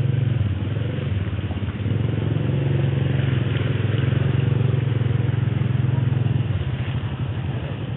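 A small petrol engine running steadily with a fast, even throb, growing weaker about six and a half seconds in.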